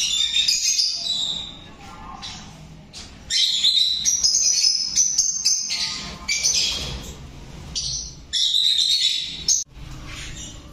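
A flock of lovebirds chattering and screeching, in about four bursts of shrill calls with short quieter gaps between.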